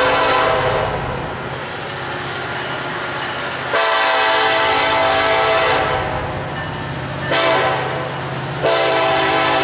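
Union Pacific SD70ACe locomotive's air horn sounding the grade-crossing pattern as the train approaches. One blast ends just after the start, then come a long blast about four seconds in, a short one, and a final long blast near the end. Under the horn runs the steady low drone of the diesel engines.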